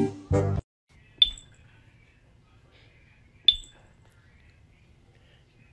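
A loud pitched sound cut off about half a second in, then three short, high pings about two and a half seconds apart over a faint low hum.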